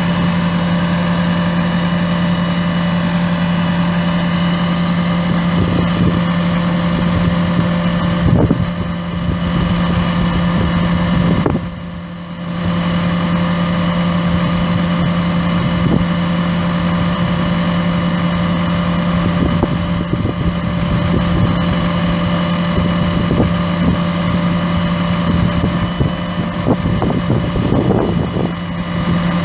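Volvo VE7 6.7-litre inline-six turbo diesel idling steadily, dipping briefly in level about twelve seconds in.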